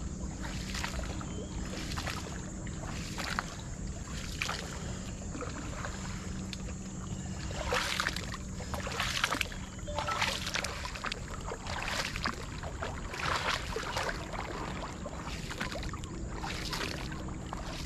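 Coracle paddle strokes: the boatman's paddle dipping and pulling through calm river water, a splashing swish roughly once a second.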